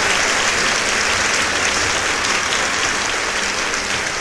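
Audience applause: dense, steady clapping that eases slightly in level toward the end.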